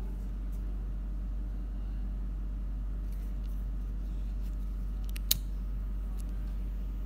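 Ronson Spartan pocket lighter's thumb lever clicking once, sharply, about five seconds in as the lighter is struck and lights, with a few faint clicks of handling before it, over a steady low hum.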